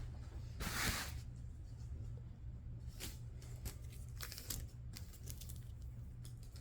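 Packaging around a laptop charger being torn and handled. A loud tearing rip comes about a second in, followed by scattered crinkles, rustles and light clicks. A steady low hum runs underneath.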